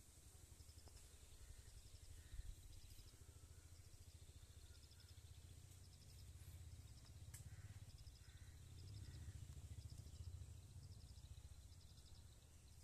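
Near silence: faint outdoor ambience in which a small high-pitched chirp repeats in quick short groups about once a second, over a low wind rumble on the microphone.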